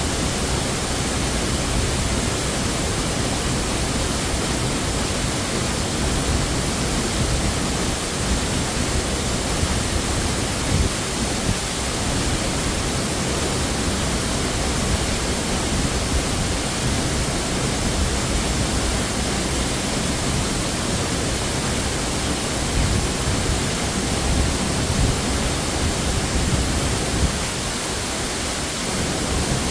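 Waterfall rushing: a steady, even noise, with a few light knocks over it.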